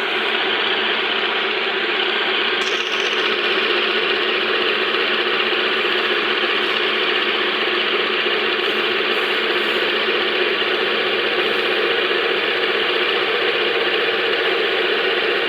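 Workshop machine running steadily during the polishing of a wooden dhol shell, an even, unbroken mechanical noise with no changes in pitch.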